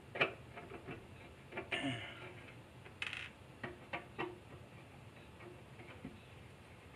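Light clicks and taps of small parts being handled and fitted against the side of a soldering rework station's case, with a brief scrape about three seconds in.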